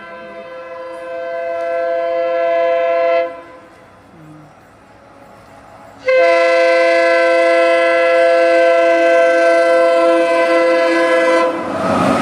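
WDP4D diesel locomotive's air horn sounding two long blasts. The first grows louder as the locomotive approaches and stops about three seconds in. The second, louder one runs from about six seconds in until near the end, when the rolling noise of the passing train takes over.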